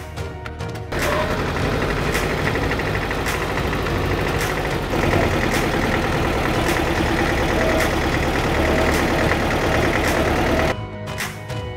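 Vintage tractor engine running steadily with a regular chugging beat as the tractor drives along. It starts about a second in and cuts off near the end, where background music is heard.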